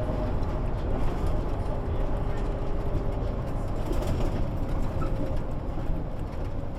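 1998 MAN NG 312 articulated city bus running steadily, heard from inside the passenger cabin: a low rumble with a faint whine over it.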